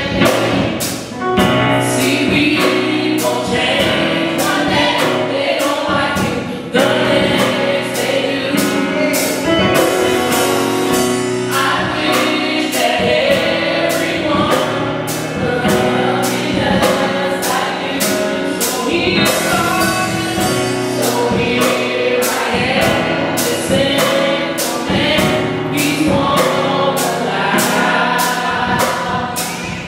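Gospel choir of men's and women's voices singing in harmony over keyboard accompaniment, with a steady beat.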